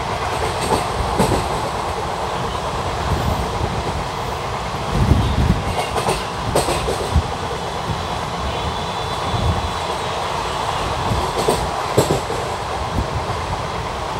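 An ICF passenger coach of a moving express train: a steady rumble of wheels on the track, with sharp clacks at uneven gaps as the wheels cross rail joints. A heavier rumble with a cluster of clacks comes about five to seven seconds in.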